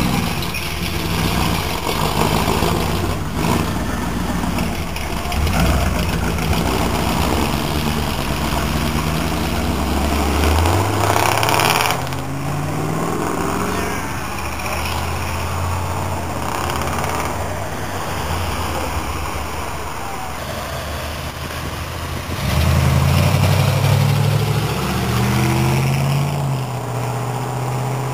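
V8 muscle car engines running and revving, rising in pitch twice: about ten seconds in, and louder again near the end.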